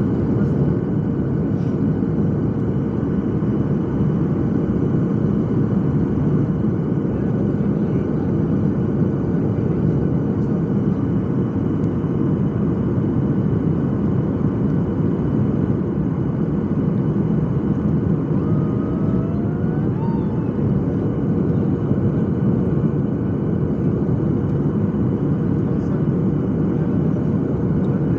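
Steady rumble of a jet airliner's cabin, engine noise and rushing air, heard from a window seat over the wing while descending on approach with the flaps extended. A faint steady hum runs underneath it.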